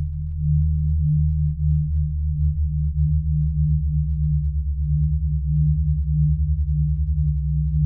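Low, steady synthesized humming drone, pure sine-like tones that pulse in a fast wobble, with faint scattered ticks above it.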